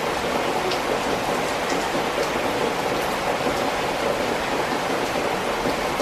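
Steady rain falling, with a few separate drops tapping through the even hiss.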